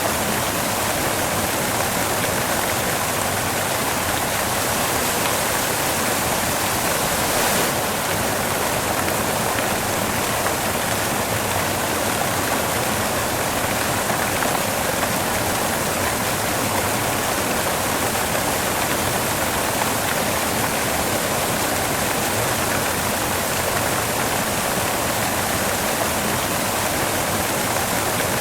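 Steady white noise: an even, unchanging hiss spread across the whole range of pitch.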